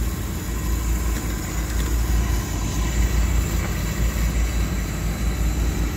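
Engine-driven heavy-duty trailer-mounted flood pumps running steadily, a deep even rumble, as they pump floodwater.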